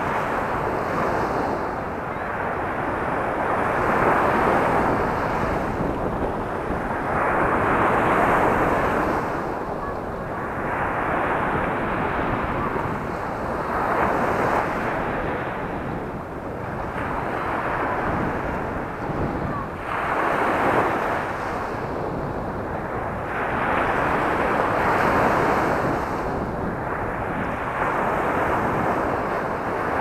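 Sea surf breaking on a pebble beach and washing up the shingle, swelling and falling back in a slow rhythm every three to four seconds.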